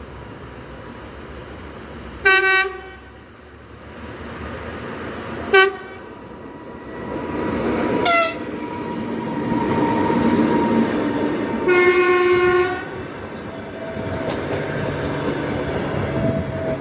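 EP2K electric locomotive sounding its horn four times: three short blasts, then a longer one of about a second. Between and after the blasts, the rumble of the train grows louder as it comes through.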